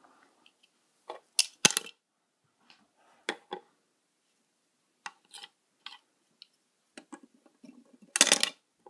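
Scattered light clicks and taps of small plastic toy figures and a toy lantern being handled and set down, the loudest about two seconds in, with a short rustle near the end.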